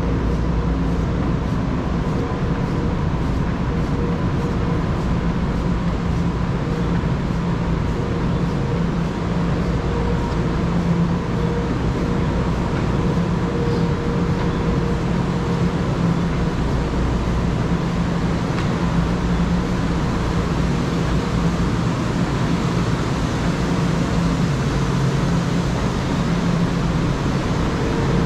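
Steady road and traffic noise heard from a bicycle on the move, with a low hum and a faint steady whine.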